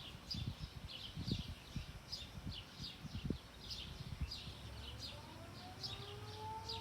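Outdoor tornado warning siren starting up for its weekly test: about five seconds in, two tones begin rising slowly together as it winds up. Through the whole stretch a bird chirps repeatedly in short high notes, about two or three a second, with a few low thumps in the first few seconds.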